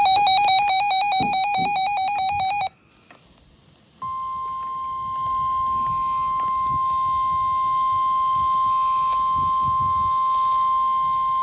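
Emergency Alert System SAME digital data burst, a harsh, rapidly warbling electronic screech lasting about two and a half seconds. After about a second's gap comes the NOAA Weather Radio 1050 Hz warning alarm, a steady single-pitch tone that signals an alert is about to be read.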